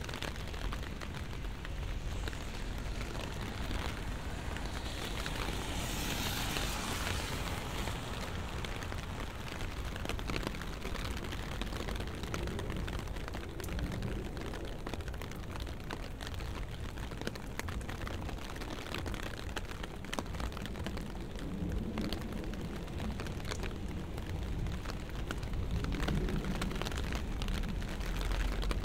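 Steady rain on a city street, full of fine dripping ticks over a low rumble. A broader hiss swells and fades about six seconds in, and the rumble grows louder near the end.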